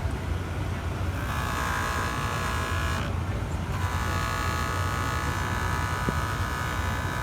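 JOOLTOOL rotary polishing tool running with a steady whine while a watch part is worked on it. The whine comes in two stretches: from about a second in for two seconds, then again from about four seconds in, over a constant low rumble.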